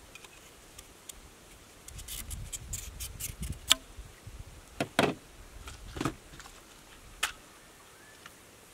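Handling noise of small hard parts: rustling with a series of sharp clicks and knocks. The sharpest click comes a little over a third of the way in, then several more follow about a second apart.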